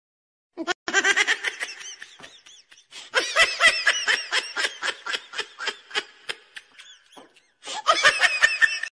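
Hearty laughter in rapid repeated bursts of 'ha-ha', coming in three stretches with short breaks between.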